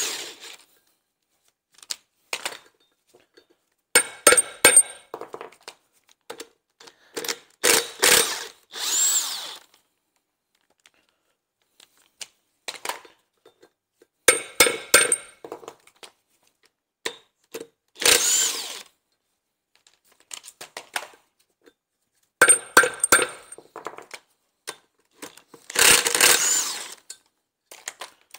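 Hammer taps seating a T50 Torx bit in the bolts that hold a van's rear hub to its brake disc, each followed by a cordless impact gun briefly rattling the bolt loose. This comes in several rounds a few seconds apart, and the steel hub and disc ring with the blows.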